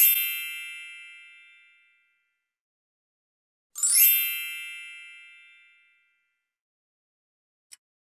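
Two high, bell-like chime strikes, one at the start and one just before four seconds in, each ringing and fading out over about two seconds.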